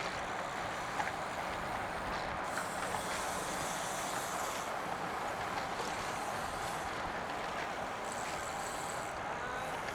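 Wind rushing over the microphone and tyre noise on the road while riding a road bike in a group, a steady hiss that grows sharper for a couple of seconds partway through.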